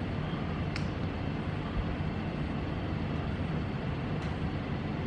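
Steady low background rumble and hiss with no speech, and two faint clicks, about a second in and near the end.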